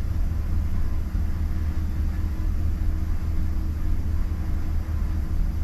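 Pickup truck engine idling steadily, a constant low hum with no change in speed.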